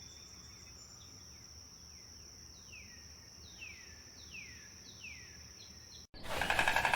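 A steady high insect drone under a bird's repeated short calls, each sliding downward in pitch. Just after six seconds this cuts off abruptly and a louder, fast-pulsing buzz begins.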